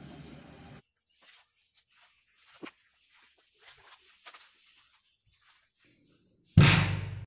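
A steady background noise cuts off under a second in, followed by a few faint scattered clicks and rustles. Near the end comes a sudden loud, heavy thump that fades away over most of a second.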